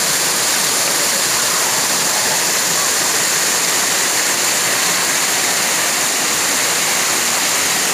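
Waterfall and rocky cascades: a steady, loud rush of falling water.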